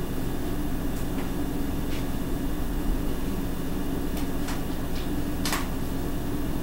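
Steady low hum in a room, with a few short light clicks; the sharpest click comes about five and a half seconds in.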